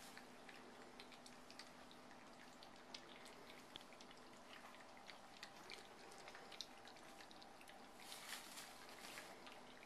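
English bulldog puppies lapping and licking soft food from a shared dish: faint, scattered wet clicks and smacks.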